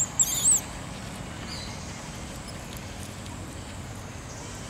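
A quick cluster of two or three short, very high-pitched chirping animal calls about half a second in, over a steady background of outdoor noise.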